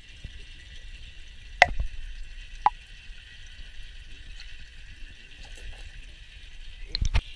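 Muffled water sound heard underwater through a camera's waterproof housing: a steady hiss with a low rumble. Sharp knocks and plops break through it, one about a second and a half in, another a second later, and a quick loud pair near the end.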